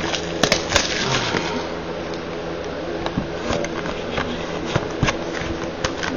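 Rustling and scattered small clicks from a cardboard Bowman Inception baseball card box being handled and pulled open by hand.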